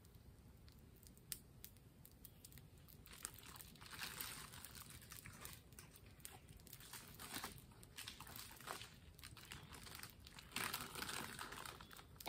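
Faint crinkling and rustling of a plastic snack bag being handled, heaviest about a third of the way in and again near the end, with scattered small crackling pops from a wood campfire.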